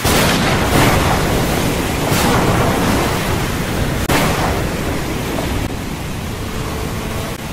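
Heavy rain pouring down, a loud steady rushing hiss, with a few sudden louder swells, the sharpest about four seconds in.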